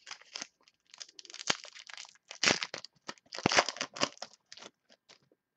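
A trading-card pack wrapper being torn open and crinkled, in a run of crackly rustles and tearing sounds that stop about five seconds in.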